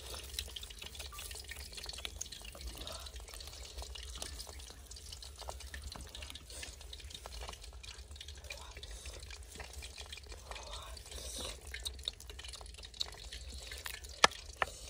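Faint light patter of grated coconut shreds sprinkled onto chopped shallots, garlic and chillies in a wooden bowl, then a thick liquid poured over them, with a few sharp drips and ticks near the end.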